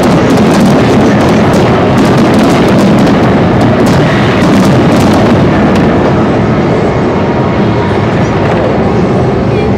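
A professional fireworks display in full barrage: aerial shells bursting one after another, their booms and sharp crackles merging into a loud, continuous din. The cracks are thickest in the first half and thin out somewhat after about five seconds.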